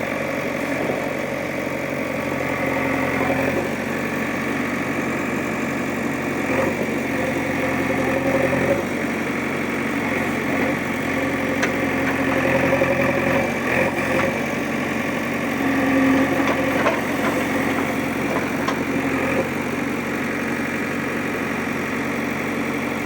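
A vehicle engine running steadily at idle. Its tone shifts slightly a few times, and a few sharp clicks come around the middle.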